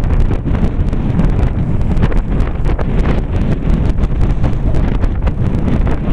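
Wind buffeting the camera microphone: a steady low rumble with many small crackles.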